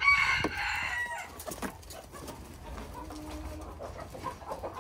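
Vorwerk chickens: one bird gives a loud call, about a second long, right at the start, then soft low clucking from the flock.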